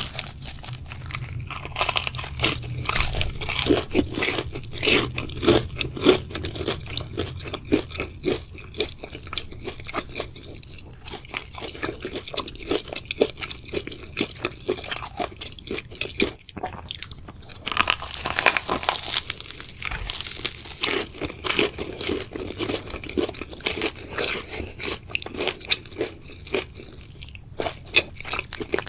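A person biting and chewing crunchy food, with dense irregular crunches and crackles throughout and a louder burst of crunching about eighteen seconds in.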